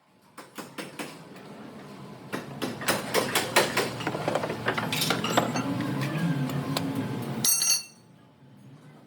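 Irregular metallic clinks and knocks of metal tools and parts being handled. A steadier mechanical hum comes in about halfway and cuts off suddenly near the end.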